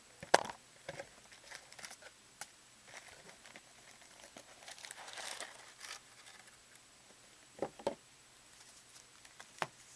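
A trading-card hobby box and its wrapped packs being handled: a sharp click just after the start, crinkling of wrapping around the middle, and a few knocks near the end.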